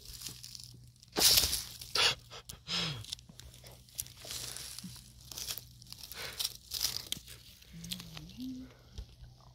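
Irregular crunching and rustling of dry needle litter, twigs and moss as a large bolete is worked out of the forest floor by hand and lifted. The loudest crunch comes about a second in.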